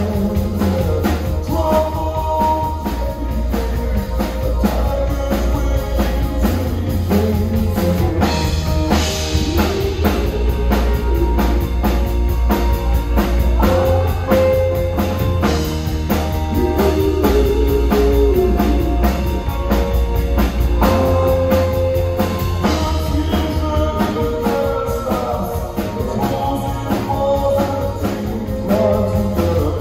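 A live rock band playing through a PA, with a drum kit, electric guitars and bass under a woman singing lead.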